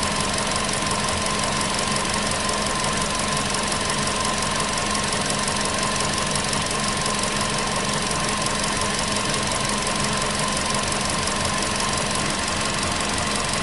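Volkswagen Polo Sedan petrol engine idling steadily and a little rough, with a steady whine over it. The owner says it has stopped knocking.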